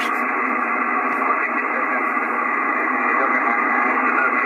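Icom IC-756PROII HF transceiver receiving single-sideband on the 40-metre band: a steady hiss of band noise and static from its speaker, sounding thin like a telephone line, with no station clearly coming through.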